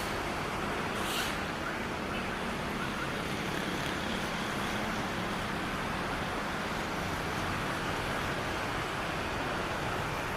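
KA Brawijaya passenger train running past on the rails: a steady rumble and rush of wheel and rail noise, with a brief high hiss about a second in.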